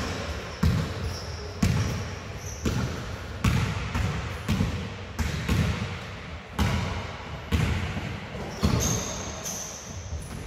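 Basketballs bouncing on a sports hall floor, a sharp thud about once a second, each trailing off in the hall's echo, with a few faint high squeaks.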